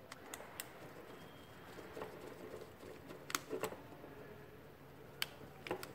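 Small sharp clicks and faint scraping as a screwdriver works the screw terminal of a pushbutton contact block, tightening a wire into it; about half a dozen separate ticks spread through.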